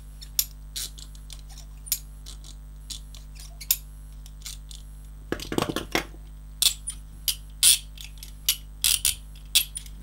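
Russian steel handcuffs being ratcheted, the pawl clicking over the bow's teeth in scattered metallic clicks that come faster and louder in the second half, with a heavier clunk about halfway through. One cuff sounds very soft, while in the other the spring and locking mechanism can be heard working.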